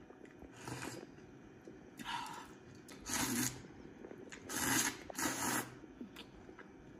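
Close-up eating sounds from a person's mouth: about five short noisy bursts, the last two close together about two-thirds of the way through.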